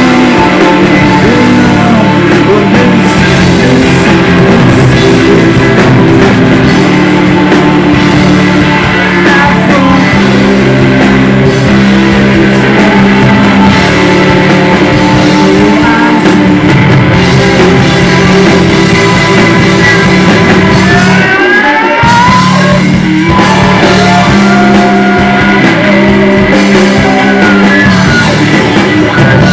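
Live rock band playing loudly, with electric guitar, bass guitar, drum kit and keyboards. About three quarters of the way through, the low end drops out briefly while rising pitch slides sound, then the full band comes back in.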